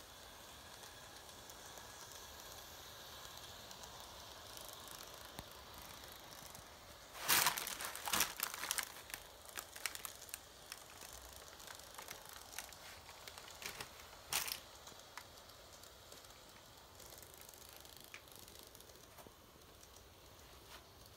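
Faint steady whir of an N-gauge model train running on its track, with a burst of irregular crackling clicks about seven seconds in that thins out by about fourteen seconds.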